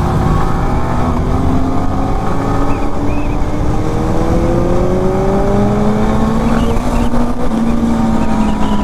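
Motorcycle engine accelerating as the bike gains speed, its note climbing slowly for several seconds, with a lower engine note taking over about six seconds in. A steady low rumble of wind on the microphone runs underneath.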